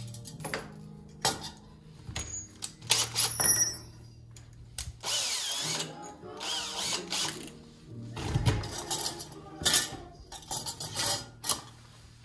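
Cordless drill-driver running in short bursts, with sharp metal clicks and taps from a steel electrical back box being worked by hand in the first few seconds.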